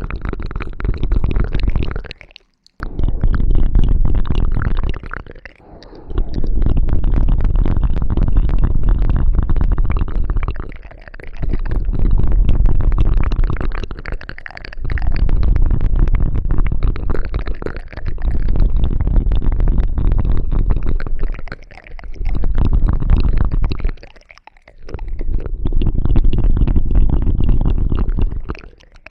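ASMR ear-cleaning sounds right on the microphone: a tool rubbing and scratching, heard as a loud, dense crackling rumble. It comes in stretches of two to five seconds with short breaks between them.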